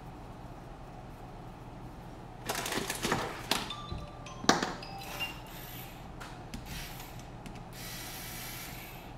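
Small metal tools and parts clinking and knocking together on a workbench, some with short ringing tones. The clatter starts about two and a half seconds in and is loudest around the middle, and a brief rustle follows near the end.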